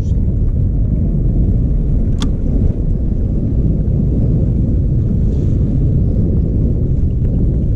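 Steady low rumble of a small outboard-powered motorboat under way, with wind buffeting the microphone. One sharp click comes about two seconds in.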